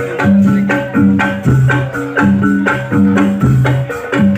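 Reog ensemble music played live: struck, sustained low gong-like notes alternate between two pitches in a steady repeating pattern, with rattling percussion and quick strokes over them.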